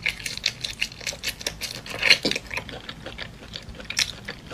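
Raw shrimp being peeled apart by hand and eaten, close to the microphone: a dense run of small irregular crackles and clicks from the shells.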